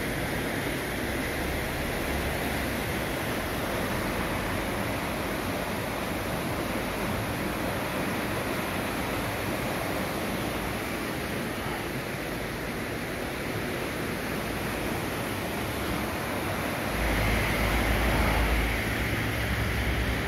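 The River Usk in spate: fast, high floodwater rushing past the stone bridge piers, a steady rushing noise. A low rumble comes in near the end and the sound grows louder.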